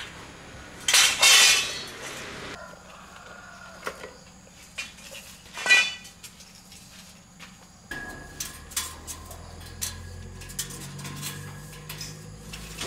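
Metal objects clanking and scraping together: a loud scraping clatter that rings briefly, then a single sharp ringing clank, then scattered light ticks and knocks. A low steady hum comes in about eight seconds in.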